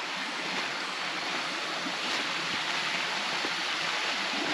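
Steady rushing of falling and flowing water from a waterfall and its stream.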